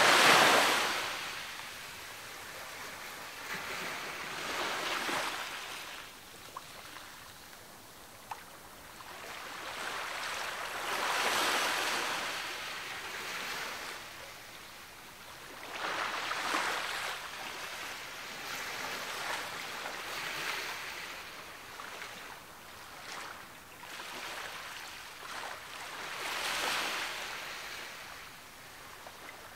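Sea waves breaking on the shore, one surge of surf every four to six seconds with quieter wash between. The first break is the loudest.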